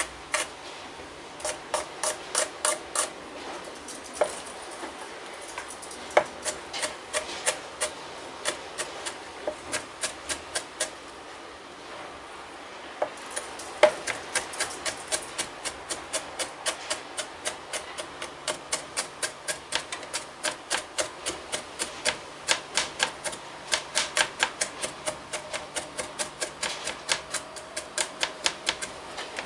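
Kitchen knife chopping garlic cloves on a plastic cutting board: runs of sharp knocks of the blade on the board, about three or four a second, broken by short pauses.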